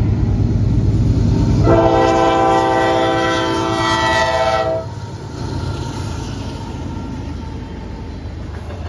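Norfolk Southern diesel locomotive sounding its air horn for the grade crossing: one long chord of several tones lasting about three seconds, over the engine's low rumble. When the horn cuts off, coal hopper cars keep rolling past with a steady rumble.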